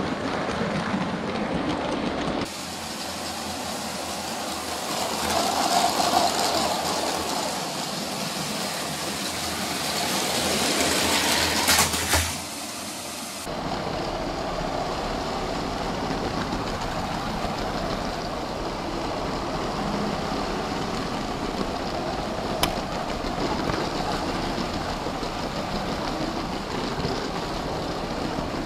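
LEGO City train's motor and wheels running along plastic track, heard close up from a camera riding on the train. The sound changes abruptly twice, swells to a sharp knock about twelve seconds in, then runs steady.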